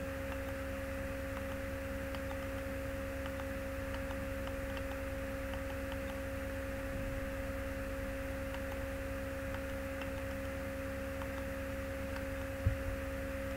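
Steady electrical hum: a low buzz with two constant pure tones, one an octave above the other, with a few faint clicks scattered through it and a short knock near the end.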